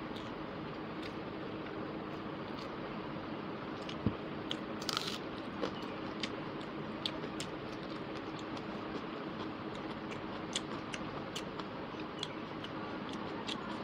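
Close-miked eating: chewing, with small wet mouth clicks and the squish of rice and curry being mixed by hand on a plate, over a steady background hiss. A louder click comes about four seconds in, followed shortly by a brief crunch.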